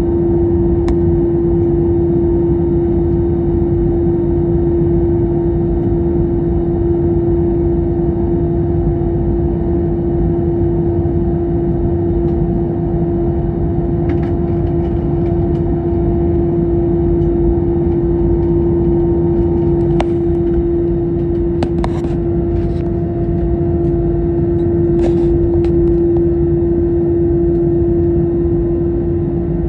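Steady cabin noise inside an Airbus A321neo airliner: a constant drone from its Pratt & Whitney geared turbofan engines and the airflow, with a steady hum running through it. A few faint clicks come in the second half.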